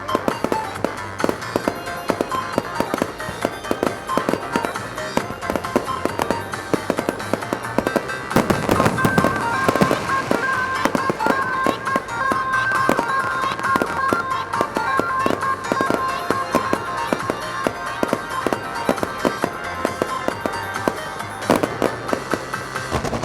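Fireworks finale: a dense, continuous barrage of shell bursts and crackling reports, heaviest about eight to eleven seconds in, with music playing underneath.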